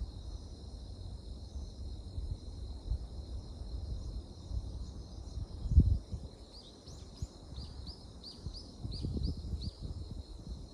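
Night insects chirping steadily, with a bird giving a quick run of about ten short chirps in the second half. Under it a low rumble, with one loud bump about six seconds in.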